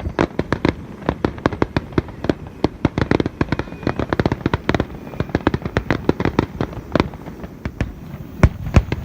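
Aerial fireworks bursting in a rapid, irregular barrage of sharp bangs and cracks, several a second.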